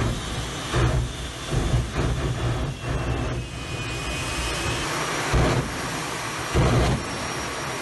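Jet engine of a jet-powered VW pickup truck running on the spot: a steady high whine and rush, with deep surging bursts every second or so as the afterburner fires.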